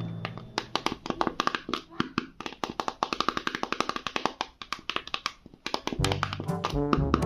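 A quick series of sharp taps or clicks, several a second, then music with a bass line comes back in about six seconds in.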